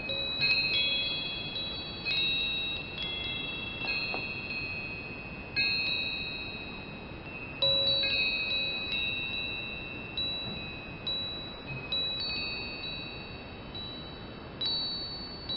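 Wind chimes ringing, several high notes struck at irregular moments every second or two, each ringing on and slowly fading, over a faint steady hiss.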